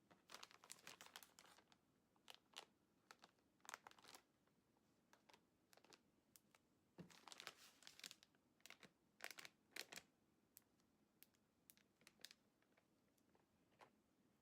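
Plastic bags being handled, crinkling and rustling in short, irregular bursts.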